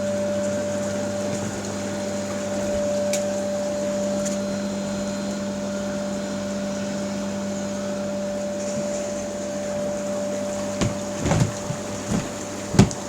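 Hot tub's main pump unit running on setting 1 inside a sound-deadening box: a steady, muffled hum with a couple of held tones. A few knocks near the end.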